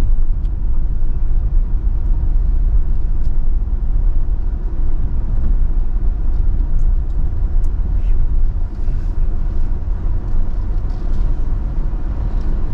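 Steady low rumble of a car driving slowly over a rough dirt road, heard from inside the cabin, with a few faint ticks.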